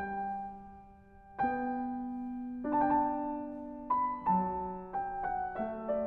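Slow solo piano music: single notes and chords struck and left to ring, spaced about a second apart at first and coming more quickly in the second half.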